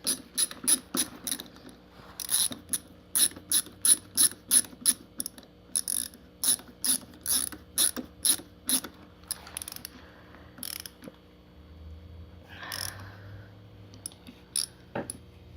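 Ratchet screwdriver clicking as it is worked back and forth to drive a screw back into a small engine's magneto: a run of sharp clicks, about three a second, that thins out and stops about 11 seconds in, with a couple more clicks near the end. A brief rustle comes about 13 seconds in.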